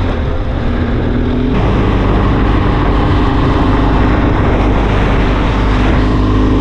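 A car running down the road, heard from inside the cabin: a steady engine hum with road noise. The noise gets fuller and changes pitch about a second and a half in.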